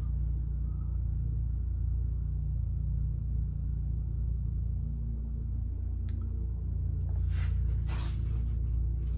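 Steady low mechanical hum, with two short hisses near the end.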